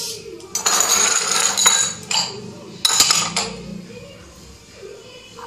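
Steel spoon scraping butter across a slice of brown bread, in two scraping spells: a longer one about a second in and a shorter one near three seconds, with a few sharp clicks of the spoon.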